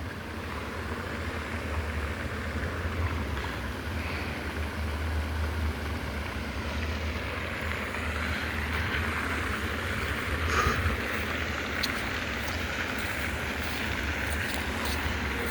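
Steady outdoor noise: a low rumble with an even hiss over it, like wind buffeting the microphone, with a few faint clicks in the second half.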